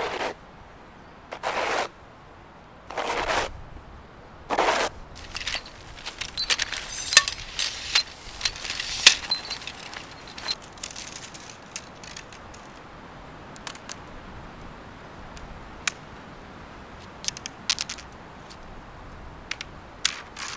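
Four slow footsteps crunching in snow about a second and a half apart, followed by a few seconds of dense crackling and clicking, then scattered faint clicks.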